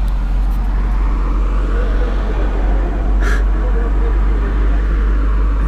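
Car-audio subwoofers playing a steady, very deep bass tone at high level during an SPL bass test, with a dense rattling buzz above it.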